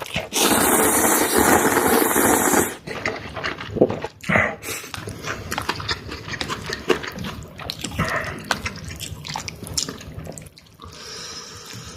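Wet liquid and eating sounds: a loud steady hiss for the first three seconds or so, then a run of small wet clicks and smacks, and a fainter hiss near the end.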